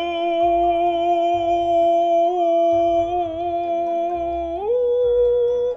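A man's voice singing one long, steady "ooh" note, then sliding up to a higher note near the end and cutting off suddenly.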